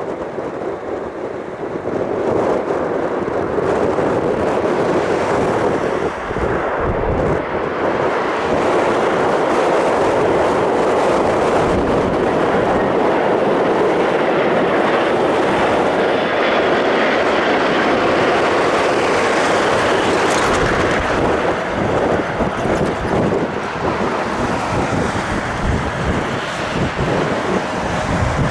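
Jet noise from an Airbus A380-861's four Engine Alliance GP7200 turbofans on final approach. The noise swells over the first few seconds and then holds steady and loud as the aircraft passes low, with wind buffeting the microphone.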